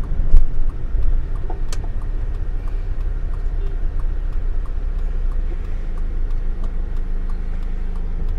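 Car driving through town traffic, heard from inside the cabin: a steady low engine and road rumble, with a few sharp knocks in the first two seconds.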